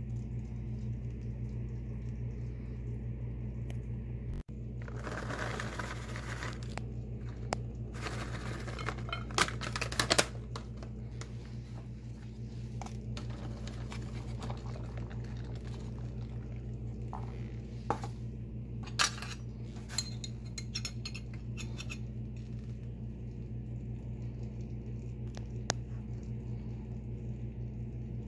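Metal tongs tossing and serving a lettuce salad: rustling leaves and a few sharp clinks of tongs and utensils against the bowl and plate, over a steady low hum.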